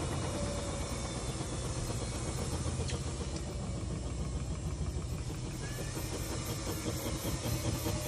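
KitchenAid front-load washing machine (model KHWS01PMT2) running in its spin cycle: a steady rumble of the turning drum and motor.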